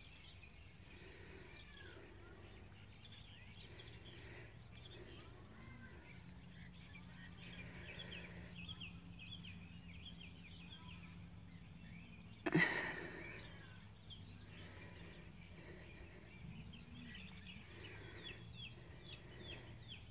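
Faint outdoor ambience of small birds chirping over a low steady hum, with one loud sudden noise about twelve seconds in that dies away within a second.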